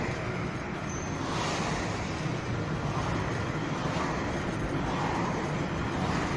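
Steady road traffic noise, a vehicle on the move, with gentle swells every couple of seconds.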